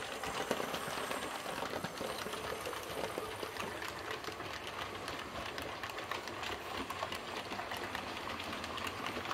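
Hornby OO-gauge model train running on the layout track: a small electric motor whirring steadily under a dense, rapid clicking of wheels on the rails.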